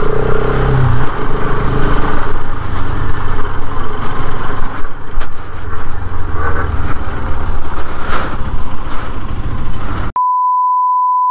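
Motorcycle engine running with heavy wind buffeting on the helmet mic while riding. About ten seconds in the sound cuts out and a steady electronic beep tone plays for about a second and a half.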